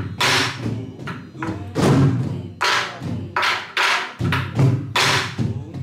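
Several sori-buk, the barrel drums that accompany pansori, played together in a gobeop rhythm exercise: sharp cracks of the sticks on the drums' wooden shells and heads, mixed with deep thuds of the open palm on the left head, about two strokes a second.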